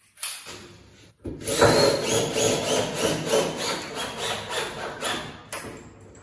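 Wooden furniture parts rubbing and scraping against each other in a quick run of repeated strokes, about three or four a second. It starts about a second and a half in and eases off near the end.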